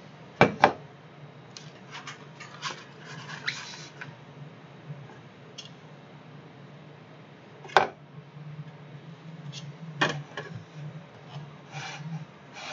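Plastic cups and a clear plastic vacuum-degassing container being handled on a workbench: two sharp knocks about half a second in, a few seconds of rubbing and scraping, then single sharp clicks twice, and the lid being fitted near the end.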